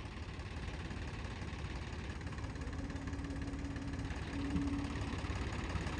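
Tractor diesel engine idling steadily, a low even running sound.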